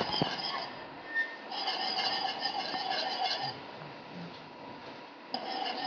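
Wire whisk stirring milk in a stainless steel pot, with a faint click against the pot just after the start.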